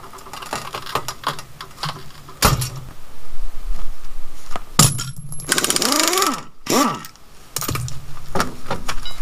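Pneumatic impact wrench rattling in several bursts as it undoes a car's wheel bolts, its air motor falling in pitch between bursts, after a sharp metallic knock.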